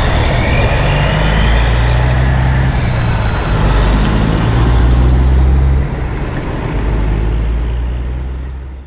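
Heavy diesel dump truck engine running steadily, the note and level dropping slightly about six seconds in, then fading out at the end.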